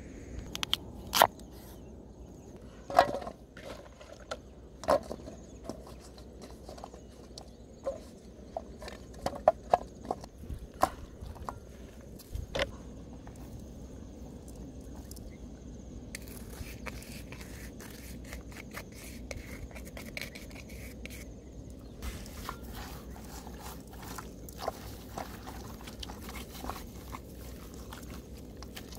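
Scattered sharp knocks and clicks from a cleaver cutting daikon during the first dozen seconds. From about halfway on, soft wet rustling and squelching of hands rubbing chili spice into a raw whole duck in a metal wok.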